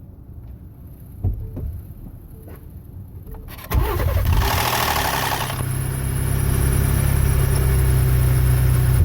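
A few light clicks, then about three and a half seconds in a Ford 3.5 L EcoBoost twin-turbo V6 cranks and fires. A loud, brief rattle lasts about a second right after start-up, then the engine settles to a steady idle. The start-up rattle is the known cold-start noise of these engines after sitting, which Ford puts down mostly to a VCT cam phaser that does not lock.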